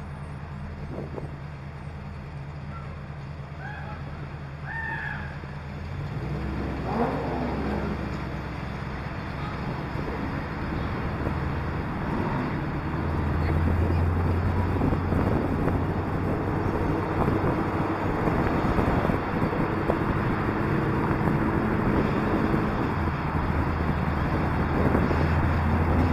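Car engine idling steadily, then pulling away at about six seconds and running under load as the car drives off, getting louder as it gathers speed, with road and traffic noise around it.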